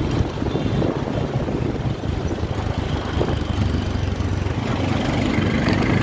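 Motor scooter engine running, a steady low rumble that grows slightly louder near the end.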